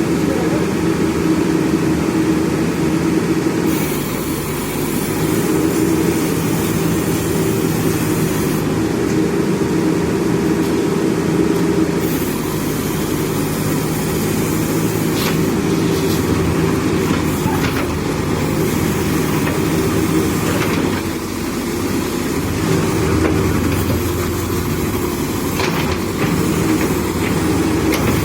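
Diesel engine of a JCB backhoe loader running steadily, its note and loudness shifting every several seconds as it works, with a few short knocks along the way.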